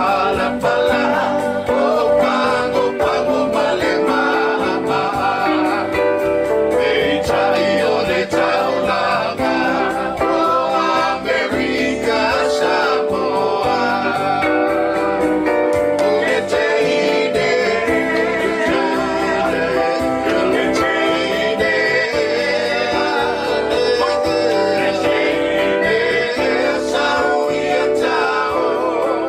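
A Samoan song performed live: singing over instrumental accompaniment, continuous and steady in level.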